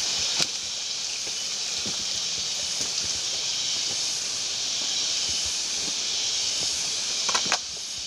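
Steady high hiss of rainforest surroundings, with footsteps on the leaf-litter trail. A sharp crack comes about half a second in and a quick cluster of snaps comes near the end.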